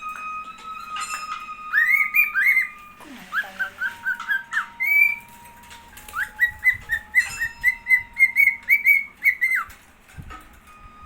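Cockatiel giving three runs of short rising chirps, several a second, over steady held notes of background music.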